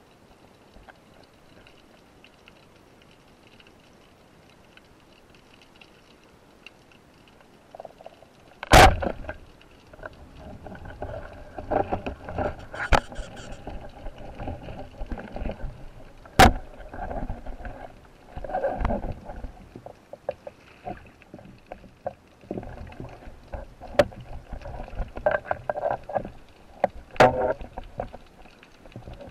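Speargun firing underwater: one sharp, loud crack about nine seconds in, after faint quiet water. It is followed by irregular churning water noise and several more sharp knocks and clicks as the speared fish struggles on the line and is brought in.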